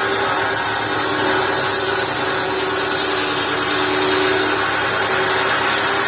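Circular blade of a tractor PTO-driven saw bench cutting steadily through firewood timber, a loud continuous rasping hiss with a steady whine under it, and the Massey Ferguson 35's four-cylinder engine running the saw.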